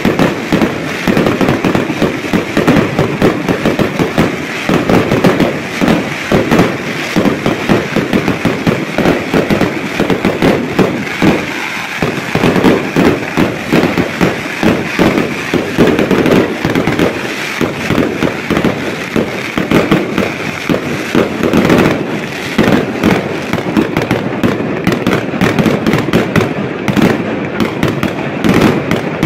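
Fireworks display: a dense, unbroken barrage of aerial shell bursts and crackling, with rapid bangs several times a second.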